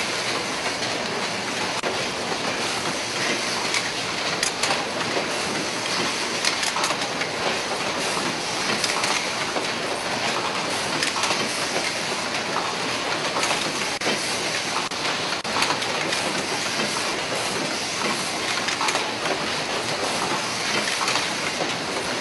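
Automated syringe assembly machinery running: a steady, dense mechanical clatter made of many small rapid clicks and rattles.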